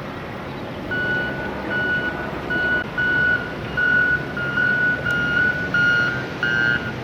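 Reversing alarm of a vehicle backing up on a construction site, beeping steadily a little faster than once a second from about a second in. A second beeper at a slightly different pitch joins about five seconds in, over a steady background rumble.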